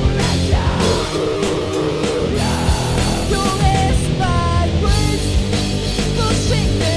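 Loud rock song with a band playing: dense guitars and steady drums, and from about three seconds in a high melody line of held notes that bend and slide.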